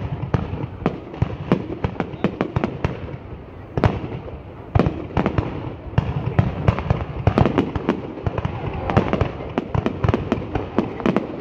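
Fireworks going off in quick, irregular bangs and crackles, easing off briefly about a third of the way in before picking up again.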